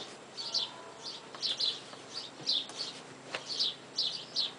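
A bird chirping over and over, short high descending chirps about two a second, with one light tap about three seconds in.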